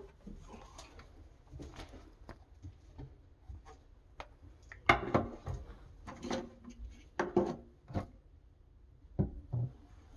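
Small plastic objects handled on a painted wooden closet shelf: scattered clicks and knocks as they are picked up and set down, with a handful of louder knocks in the second half.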